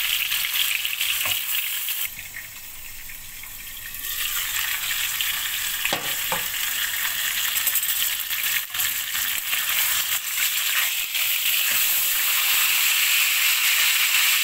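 Whole fish shallow-frying in hot oil in a non-stick wok, a steady sizzle. It drops lower for about two seconds near the start, there are a couple of light knocks about six seconds in, and the sizzle grows louder near the end as a spatula works under the fish to turn it.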